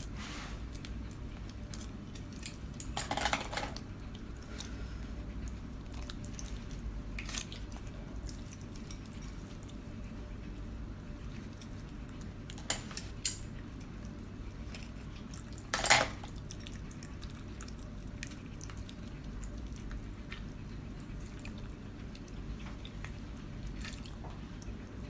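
Occasional short clinks and clatters of tableware during a seafood meal, the loudest about two thirds of the way through, over a steady low hum.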